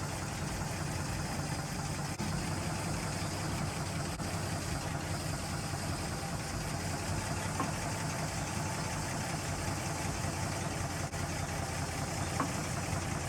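Truck engine running steadily at low speed, with no revving.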